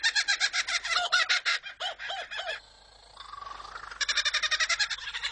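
Superb lyrebird singing its mimicked song. It gives fast runs of repeated calls, several arching notes about two seconds in and a short lull near three seconds, then rapid repeated calls again.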